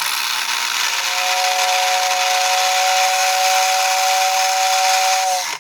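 1950s Lionel whistling tender blowing its whistle: its small electric fan motor whirs with a loud rushing noise, and a steady two-note whistle comes in about a second in and holds until it all cuts off suddenly near the end. Pretty noisy, but the whistle works.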